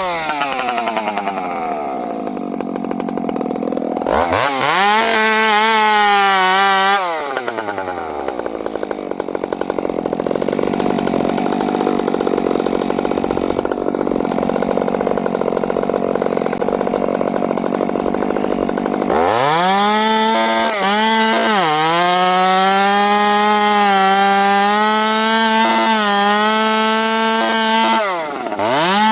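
Dolmar 7300 chainsaw, fitted with a small 1-inch pipe in place of the stock muffler, running at full throttle while cutting wood. Its pitch drops as the chain is loaded in the cut, most of all through one long cut in the middle, and it revs back up between cuts, with short dips near the end.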